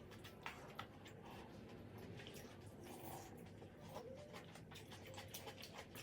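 Faint eating sounds: quiet chewing and squishing, with small clicks of utensils, two of them a little louder about half a second and nearly a second in.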